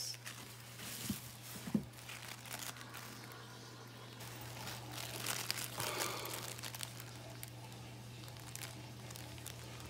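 Clear plastic bags and tissue paper crinkling softly as bagged aquarium plants are handled, with a few small clicks and a louder stretch of rustling about six seconds in. A low steady hum runs underneath.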